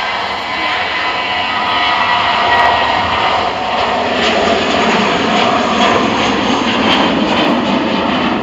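Twin jet engines of a Vueling Airbus A320-family airliner at takeoff power as it lifts off the runway and climbs away. A loud, steady jet noise with a faint whine, growing a little louder over the first couple of seconds and then holding.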